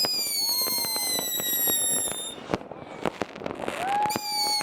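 Fireworks: long whistles from whistling rockets, each slowly falling in pitch, over a steady spatter of bangs and crackles. One whistle stops about two and a half seconds in, and new ones start shortly before the end.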